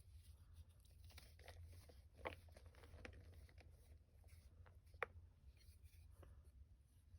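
Reformed gym chalk block being crushed and crumbled by hand: faint crunching and crackling, with two sharper snaps about two and five seconds in.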